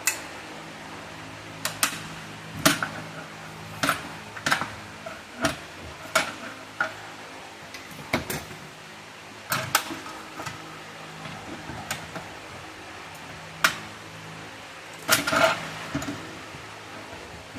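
Steel hose-crimper dies clinking and knocking against each other and the work surface as they are handled, about fifteen irregular sharp metal clinks, the loudest near the end, over a steady low hum.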